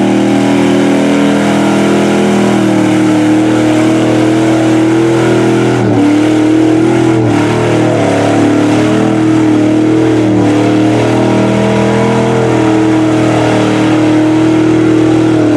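Pickup truck engine held at high revs under load as the truck pushes through a mud pit. The pitch dips and recovers about six seconds in and again a second or so later.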